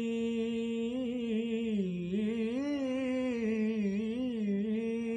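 A single voice singing a naat, holding one long note that wavers and bends in pitch in the middle, then settles and holds steady again.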